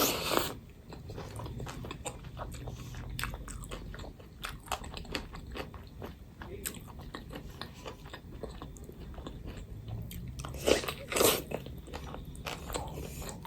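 A person eating close to the microphone: chewing with many small wet clicks and crunchy bites. The louder bites come right at the start and again about eleven seconds in.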